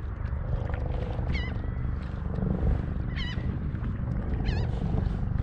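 Wind buffeting the microphone over open water, with a bird giving three short, wavering high calls one to two seconds apart.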